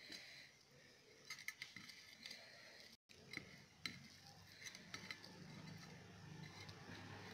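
Fingers picking roasted fish apart on a metal plate: faint scattered clicks and light taps of fingertips and fish bones against the metal.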